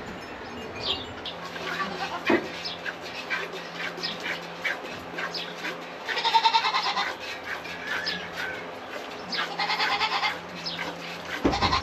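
Goat bleating: two long, loud bleats about six and nine and a half seconds in, with short high chirps scattered throughout.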